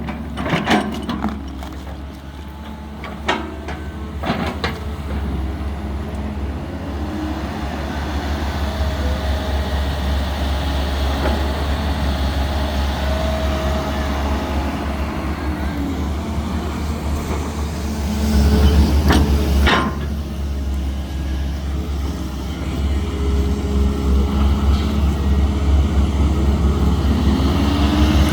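Caterpillar hydraulic excavator's diesel engine running steadily under load, with a faint whine that rises and falls. A few knocks in the first seconds and a sharp clank about two-thirds of the way through.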